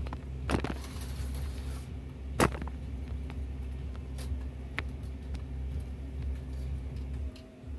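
HO-scale slot cars running on the track: a steady low motor hum with a few sharp clicks and knocks, the loudest about two and a half seconds in. The hum cuts off about seven seconds in.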